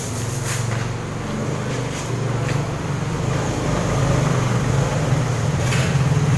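A steady low engine rumble that grows slightly louder, with a few brief soft brushing sounds from hands smoothing a vinyl banner against a wall.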